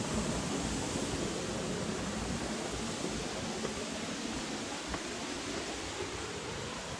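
Steady rushing of a waterfall, easing off slightly over the seconds.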